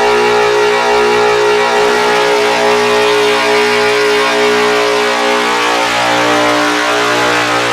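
Dense, loud guitar-pedal noise drone: many close-set sustained tones held under a thick wash of static.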